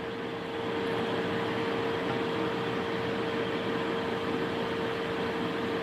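Steady whir of a running fan, with a constant mid-pitched hum.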